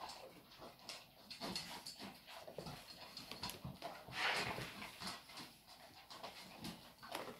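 Dogs eating from metal bowls: irregular chewing and licking, with small clicks and knocks against the bowls and a louder stretch about four seconds in.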